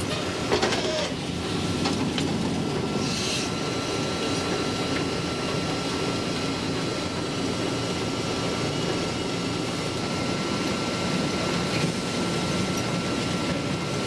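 Sawmill head rig running: a steady heavy mechanical din of the log carriage and saw, heard from inside the sawyer's glassed-in booth. A faint steady whine runs underneath, and there is a sharp clank about half a second in.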